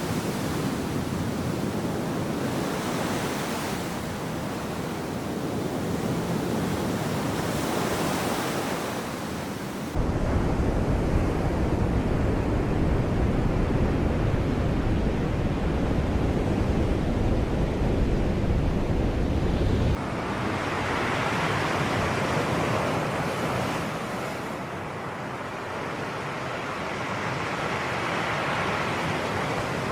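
Sea waves washing in and out, the surf swelling and ebbing every few seconds. For about ten seconds in the middle a heavy low rumble of wind on the microphone sits over it, starting and stopping abruptly.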